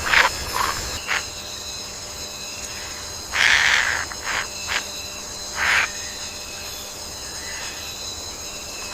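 Rainforest insect chorus, a steady high-pitched trilling, with several short animal calls over it: a few near the start, the loudest about three and a half seconds in, and one more just before six seconds.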